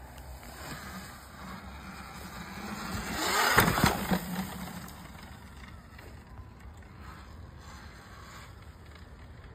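Talaria electric dirt bike passing close through wet mud: motor whine and tyres throwing up mud swell to a peak about three and a half seconds in, then fade as it rides away.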